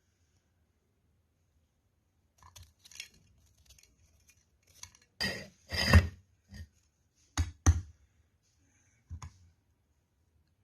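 Simulated crash sounds from a driving-physics game: a string of metal crunches, clanks and glassy clinks as something is torn up in a grinding contraption. It starts after a couple of seconds of quiet and is loudest in the middle, with two sharp hits close together soon after.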